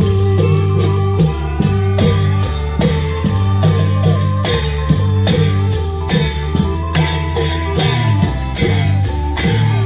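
Thai Isan klong yao long-drum troupe music: drums played to a steady beat with sharp cymbal-like strokes about two or three times a second, over a low drone and a pitched melody.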